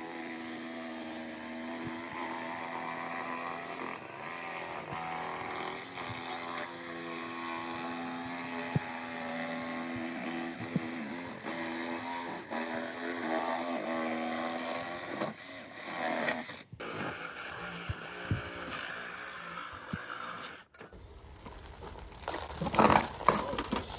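Reciprocating saw running, its pitch wavering as it cuts, with a few knocks. Near the end, a burst of loud knocks and clattering.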